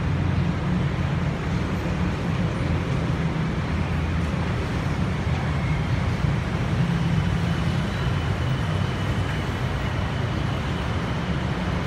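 Steady city road traffic: a continuous low rumble of engines with no single vehicle standing out.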